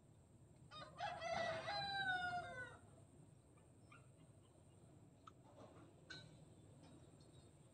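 A rooster crows once, starting about a second in and lasting about two seconds, its pitch dropping at the end. A few faint clicks follow.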